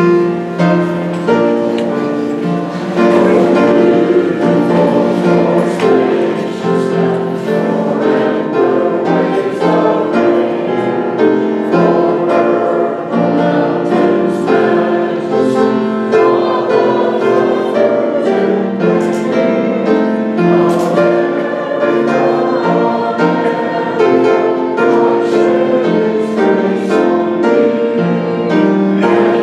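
A group singing a song together in chorus with instrumental accompaniment.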